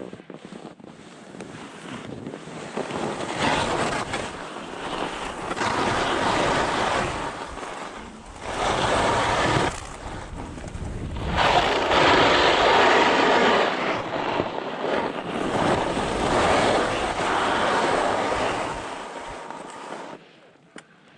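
Skis scraping over hard-packed snow in a series of turns, with wind noise on the microphone; the scrape swells and fades with each turn, loudest about twelve seconds in, and dies away near the end.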